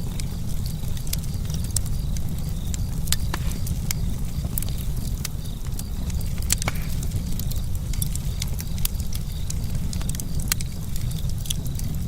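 Campfire burning: wood crackling with irregular sharp pops over a steady low rumble.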